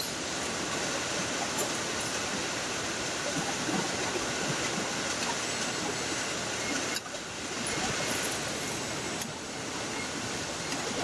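Steady din of a car assembly line's machinery, a dense hiss with a few faint clicks. It dips briefly about seven seconds in.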